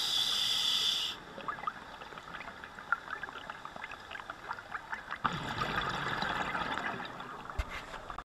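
Scuba diver breathing underwater through a regulator: a hiss of inhaled air for about a second, then faint crackling, then a burst of exhaled bubbles burbling for about three seconds. The sound cuts off suddenly near the end.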